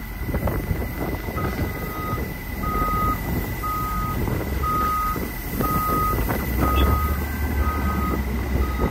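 A heavy vehicle's reversing alarm beeping about once a second, starting a second or so in, over the low rumble of a truck engine that grows louder about two-thirds of the way through.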